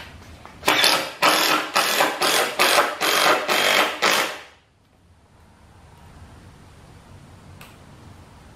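Cordless drill driving a wood screw into a pine 2x4, running in a quick series of short pulses for about three and a half seconds before stopping.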